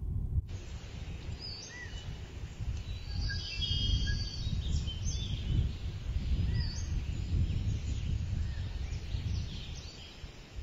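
Birds chirping and whistling over a steady low wind rumble; the birdsong comes in about half a second in.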